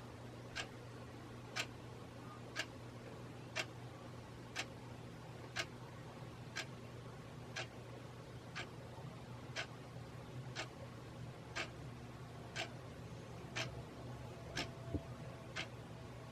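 Hunter Original ceiling fan's oil-bath motor running on the slower of its two speeds, freshly oiled: a low, steady hum with a sharp tick about once a second.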